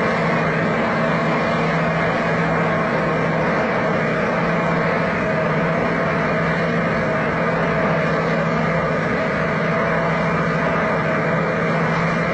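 Heavy diesel truck engine running steadily under load, a continuous even drone with a constant pitch.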